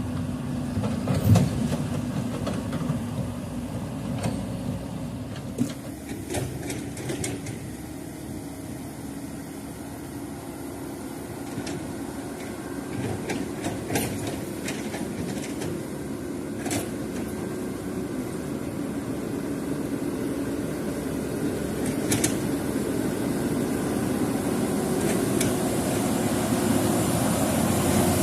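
Heavy diesel construction machinery running steadily, with scattered sharp metal clanks, and the engine sound growing louder toward the end.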